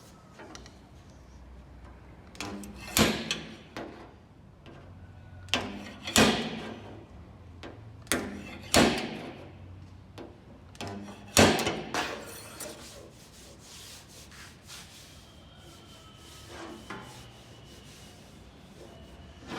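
Steel body file worked over a car door's sheet metal in about five separate strokes a couple of seconds apart, each starting sharply and rasping briefly.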